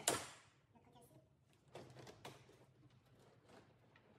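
Plastic clips of a Mercedes A-Class front bumper cover snapping loose as the bumper is pulled free: one sharp, loud crack at the start, then a few fainter clicks and knocks about two seconds in.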